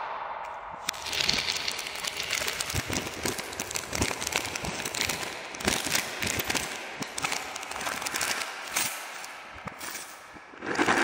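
Cellophane candy packaging crinkling as it is handled and snipped open with scissors: a dense crackle of many small clicks, growing louder near the end as a candy box is torn open.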